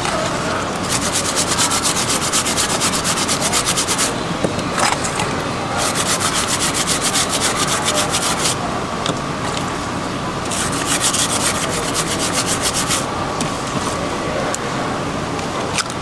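Rapid scraping strokes, about eight a second, in three runs of two to three seconds each.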